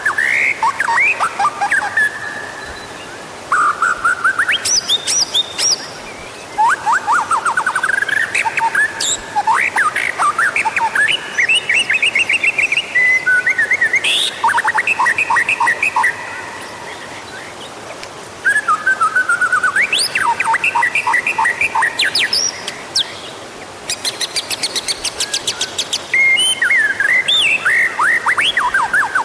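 White-rumped shama (murai batu) singing loudly in long, varied phrases of fast trills, rising whistles and rapid repeated notes, with short pauses every few seconds. It is a lure song (pancingan) played to provoke caged shamas into singing.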